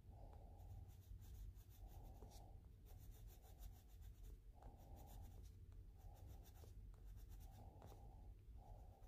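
Faint scratching of a Prismacolor Scholar colored pencil shading on coloring book paper, in a run of short strokes about one a second.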